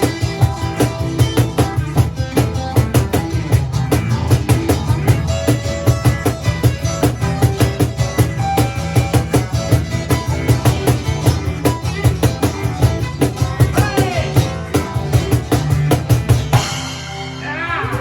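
Live band playing improvised music: fast, busy drum-kit playing over bass and pitched instruments. About a second and a half before the end the drums stop, leaving sliding, bending tones.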